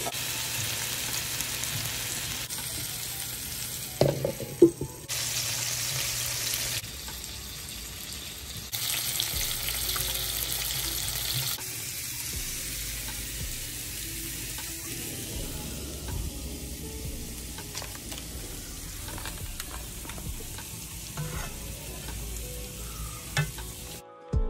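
Food sizzling as it fries: cubed potatoes under a glass lid in a cast-iron skillet, then cauliflower, carrots and peppers in a pan, in several short clips with sudden cuts. The hiss is loudest in the first half, with a brief clatter about four seconds in, and quieter in the second half.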